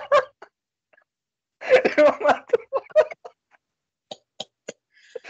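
Two men laughing hard in bursts, followed by three quick hand claps.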